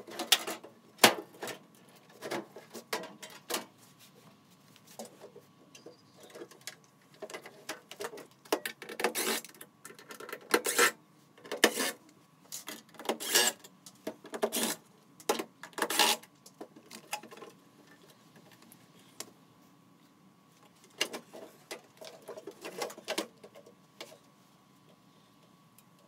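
Cordless driver whirring in short bursts as it backs screws out of a microwave oven's sheet-metal casing, mixed with sharp clicks and clatter of the screws and metal panels being handled.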